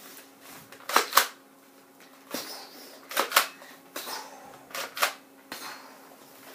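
A series of sharp clicks and knocks from things being handled, about eight in all, the loudest pair about a second in.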